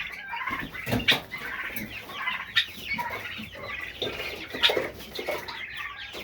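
A flock of turkeys calling all at once, many short overlapping chirps and clucks, broken by a few sudden louder sounds, the loudest about a second in and again near the fifth second.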